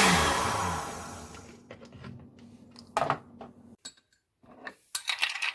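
Countertop blender switched off after blending mango juice, its motor running down and the noise fading away over about a second and a half. Then a few short knocks and clinks of kitchenware, clustered near the end.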